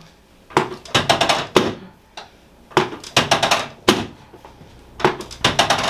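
Rapid percussive tapping on a patient's body during chiropractic treatment, in three bursts of quick thumps about a second each, spaced a second or so apart.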